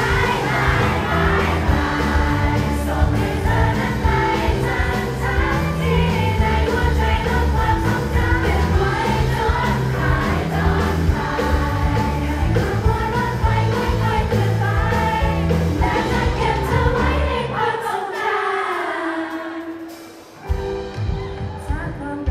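Two female singers performing a pop ballad live into handheld microphones, backed by a band with keyboard and electric guitar. About eighteen seconds in, the low accompaniment drops away and the music thins and quiets for a couple of seconds before the band comes back in.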